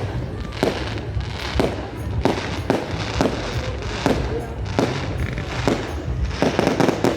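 Fireworks display: loud bangs going off every half second to a second over continuous crackling and a low rumble, with a quick cluster of bangs near the end.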